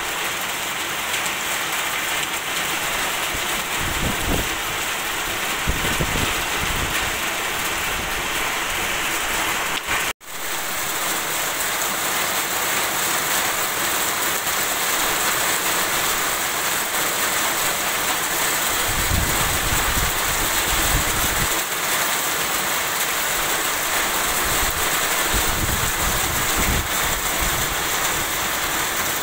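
Heavy rain falling steadily, a dense hiss of drops on standing water, ground and foliage, with a few brief low rumbles. The sound drops out for a moment about ten seconds in.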